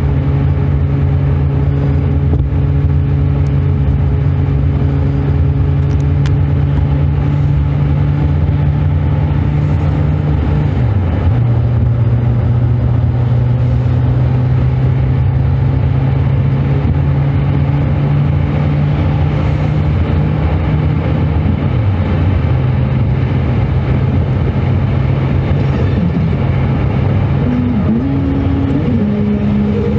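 Car driving: a steady engine hum with road noise. The engine note steps down in pitch twice, about a third of the way in and again about two thirds in.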